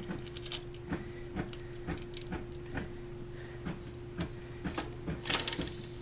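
Bicycle chain clicking and rattling as it is handled and fed through the rear derailleur's cage: irregular light clicks, a few a second, with a quick cluster about five seconds in.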